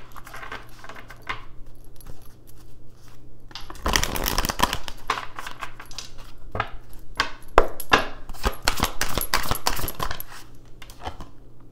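Tarot cards being shuffled and handled: a quick run of small clicks and flicks, sparse at first, then thick and fast from about four seconds in until near the end.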